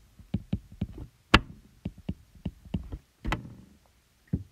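Stylus tapping and writing on a tablet's glass screen: a run of irregular sharp taps, the loudest about a second and a half in and another just after three seconds.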